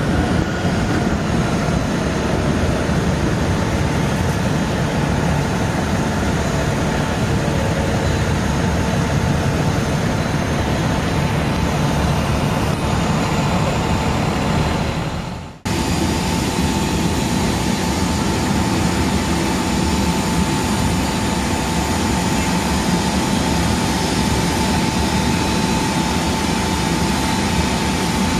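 Aircraft tow tractor's engine running steadily as it drives, with road noise. The sound drops out for an instant about halfway through, then carries on with a steady high whine added.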